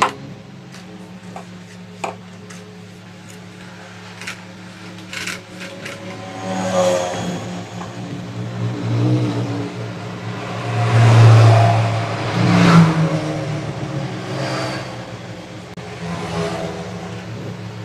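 Vehicle engine noise swelling and fading a few times around the middle, over a steady low hum, with a few sharp knocks in the first few seconds.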